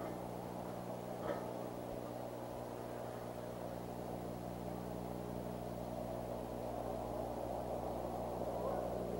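Steady low electrical hum with a layer of hiss, the background noise of an outdoor wildlife camera's microphone, with one brief sharp sound about a second in.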